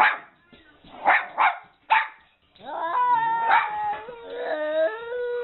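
A dog gives a few short barks and yips, then a long drawn-out whining, howl-like call whose pitch jumps up and down in steps.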